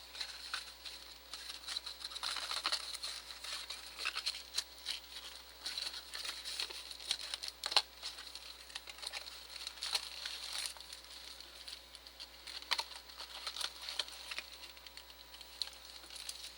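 Trading-card blaster box being opened by hand and its foil packs pulled out: irregular crinkling, rustling and tearing of cardboard and plastic packaging, with small scattered taps.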